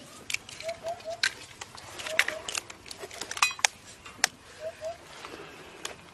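Eggshells being cracked open by hand, one after another, in sharp irregular cracks. Short bird chirps come in twos and threes in the background.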